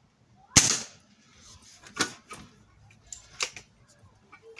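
A BSA Lightning SE gas-ram break-barrel air rifle fires once about half a second in, a single sharp shot. Smaller clicks and knocks follow as the barrel is broken open to cock it for the next shot.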